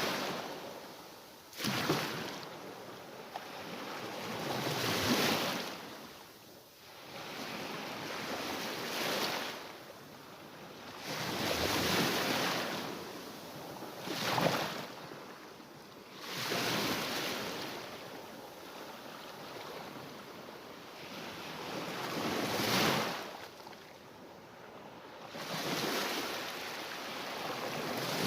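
Mediterranean Sea waves breaking on the shore and washing back, a new wave every few seconds, each swelling and fading, a few of them with a sharper crash.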